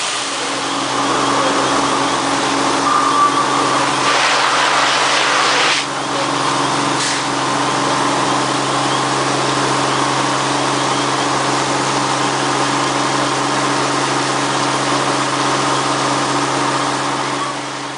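Fire apparatus engine running steadily at a constant speed, with a steady rushing hiss alongside. The rush swells briefly about four seconds in and drops off sharply just before six seconds.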